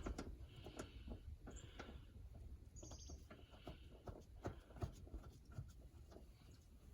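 Faint, scattered clicks and short rustles of small parts being handled during hand work on a seat belt buckle assembly.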